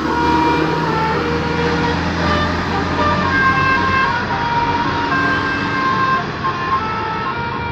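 Tourist bus's basuri musical horn playing a telolet tune: a string of short high notes that step up and down in pitch, over a steady noisy background.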